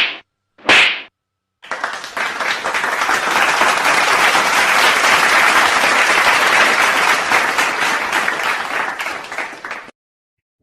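A crowd applauding and clapping for about eight seconds, swelling to a peak midway and then tapering off before it stops. It is preceded, in the first second, by two short, sharp sounds.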